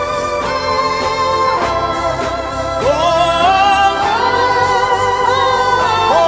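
Gospel worship music: a singer holds long notes that glide between pitches over a sustained organ-like keyboard pad and a steady bass.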